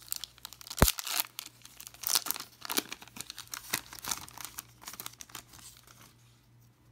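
Foil wrapper of a trading-card pack being torn open and crinkled in the hands, with a sharp crackle a little under a second in. The crinkling fades out near the end.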